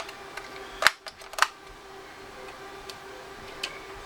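A few sharp plastic clicks and light taps, the two loudest about a second and a second and a half in, over a faint steady hum: the TI-83 Plus graphing calculator's plastic case being handled and fitted back together without its screws.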